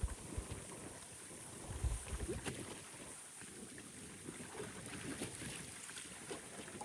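Strong gusty wind buffeting the microphone with low rumbling thumps, loudest about two seconds in, over rough lake water splashing and lapping at the shore.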